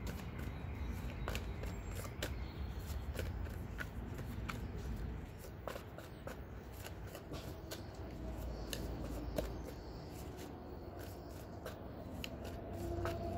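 A deck of tarot cards being shuffled by hand: irregular soft clicks and flicks as the cards slide against each other, over a low steady background rumble.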